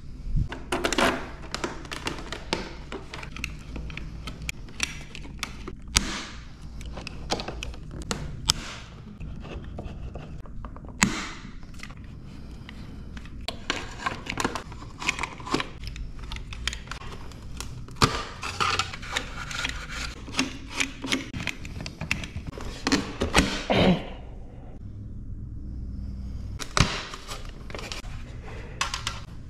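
Clicks, taps and knocks of hand work on an Aprilia RSV4: a hex-bit screwdriver undoing fairing bolts and the hard plastic body panels being lifted off and handled, with a few sharper knocks among them. A low steady hum runs underneath.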